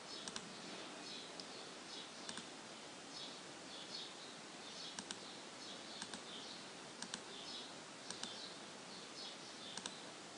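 Faint computer mouse clicks every second or two, often two in quick succession, paging through images. Faint high chirping repeats in the background.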